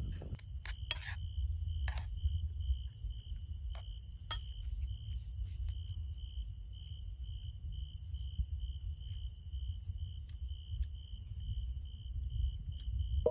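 Insects chirping in an even pulsing rhythm, about two chirps a second, over a low steady rumble. A few sharp clicks come in the first few seconds.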